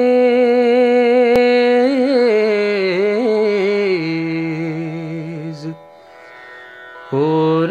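A man singing a long drawn-out, ornamented note with a slight waver in pitch; about four seconds in the note steps down lower, then fades out near six seconds, and the singing starts again about a second later.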